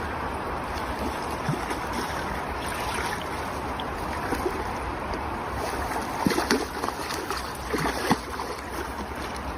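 Steady rush of river water, with a few short splashes about six and eight seconds in.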